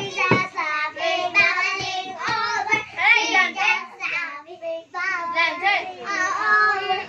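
Young children singing a song together, high-pitched and continuous, with short breaks between phrases.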